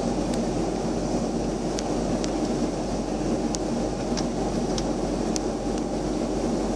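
Steady cabin noise of a jet airliner in flight: the drone of the engines and rushing airflow heard inside the fuselage, with faint ticks scattered over it at uneven intervals.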